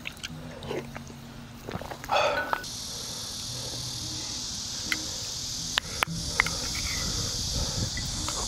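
Eating sounds: chewing and a spoon clicking against a bowl a few times, with a short loud sound about two seconds in. From that point a steady high hiss runs underneath.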